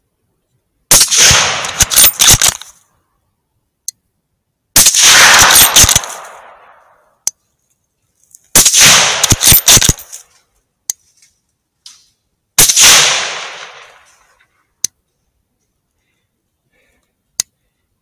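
Four loud rifle shots from a .308 Win Tikka T3, about four seconds apart, each trailing off in a long echo over a second or two. Single sharp clicks come between the shots.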